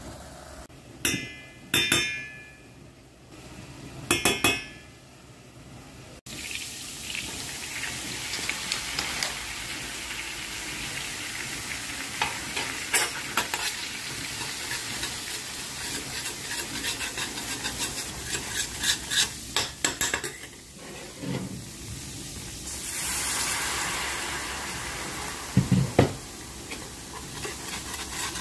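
Flour and butter sizzling in a stainless steel pot while a metal spoon stirs and scrapes, with a few metallic clinks of spoon against pot in the first seconds.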